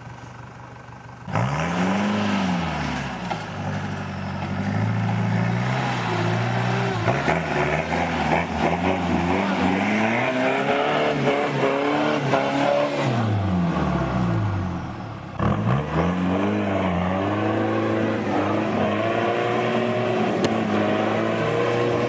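An off-road 4x4's engine revving, its pitch climbing and falling again and again. It starts suddenly about a second in and drops away briefly about two-thirds of the way through before picking up again.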